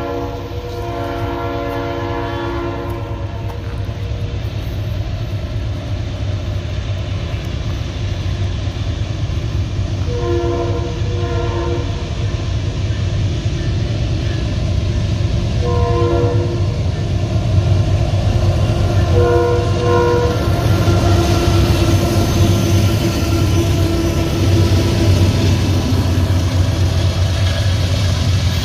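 Diesel freight locomotive approaching and sounding its horn in several short blasts, some in pairs, over a steady low engine rumble that grows louder as the train nears.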